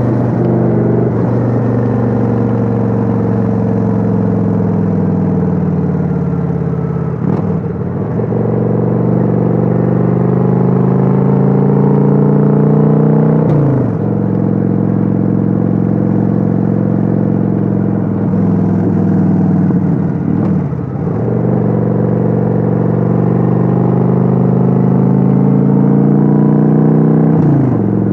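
Kawasaki Vulcan 900's V-twin engine under way, recorded on board. The engine note climbs steadily, then drops sharply and starts climbing again, about five times.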